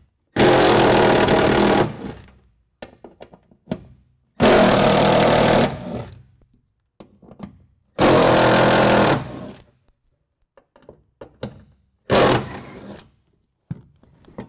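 Milwaukee cordless impact driver with a T30 Torx bit, running in four bursts of one to one and a half seconds, one burst per bolt, as it backs out the four bolts holding a steel bracket. Small clicks and handling knocks come between the bursts.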